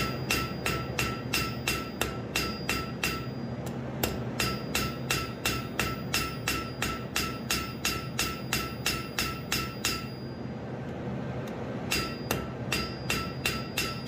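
Farrier's hammer striking red-hot steel on the edge of an anvil, about three blows a second, each with a ringing tone, drawing out thin forged wings. The hammering stops briefly about three seconds in and again for a couple of seconds near ten seconds in.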